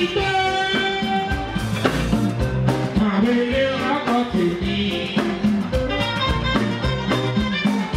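Live fuji band music: a man's lead vocal sung into a microphone, with long held notes, over electric guitars and hand drums playing a steady beat.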